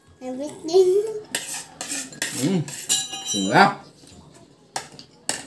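Metal spoon and fork clinking and scraping on plates and bowls during a meal, one clink ringing about three seconds in. A few short vocal sounds gliding up and down in pitch come between the clinks.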